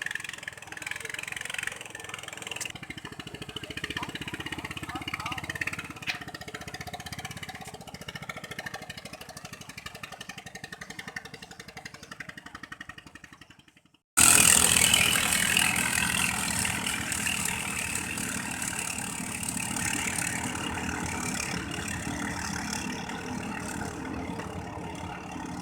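Katinting longtail boat engine running, fading away over the first half. After a sudden cut, a katinting engine is heard again, louder and closer, easing off slightly.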